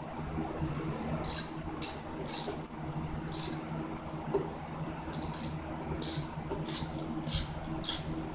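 Socket ratchet clicking in short back-and-forth strokes, a burst about every half second from about a second in, as a 12 mm gas-tank mounting bolt is backed out.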